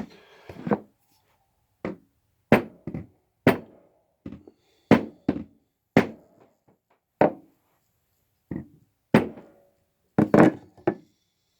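Fret wire being tapped into an ebony guitar fretboard with a small hammer: about fifteen sharp taps at uneven spacing, some coming in quick pairs.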